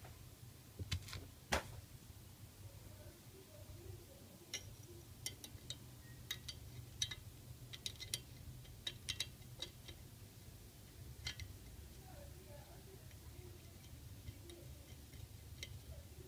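Small sharp metal clicks and taps as a screwdriver and pliers tighten a screw and nut on a Stirling engine kit's sheet-metal bracket. Two louder clicks come between one and two seconds in, then a run of quicker clicks between about four and eleven seconds, over a steady low hum.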